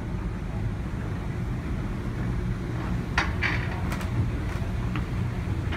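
Airport moving walkway running with a steady low hum. A few sharp clicks and taps fall about halfway through.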